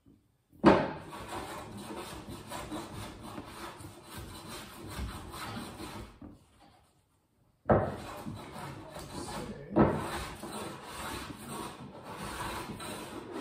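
Hand plane shaving wood along the top edge of a camper wall in long scraping strokes. Each stroke starts with a sharp bite: one long stroke, a pause, then two more near the end.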